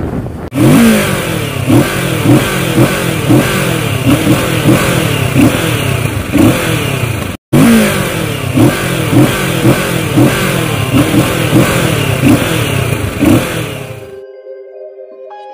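Kawasaki Ninja 650 parallel-twin engine being revved in quick repeated throttle blips, about three every two seconds, each a sharp rise in pitch and a fall back. There is a brief break about halfway, and the engine sound stops about a second before the end.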